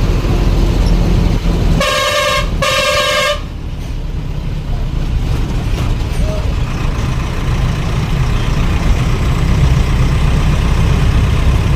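Train horn sounding two short blasts about two seconds in, a steady high-pitched tone each time, over the continuous low rumble of a train running.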